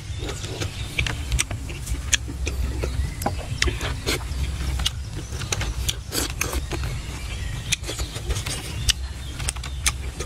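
Close-up eating sounds of someone chewing grilled fish: wet lip-smacks and mouth clicks coming irregularly, many per second, over a steady low rumble.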